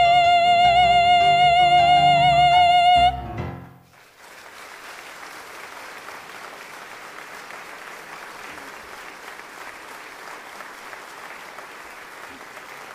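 A woman's voice holds the song's final note with vibrato over band accompaniment, ending about three seconds in. After a brief pause, the audience applauds steadily.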